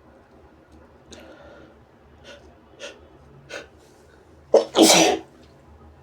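A man's sneeze: four short catching breaths over a few seconds, then one loud sneeze about four and a half seconds in.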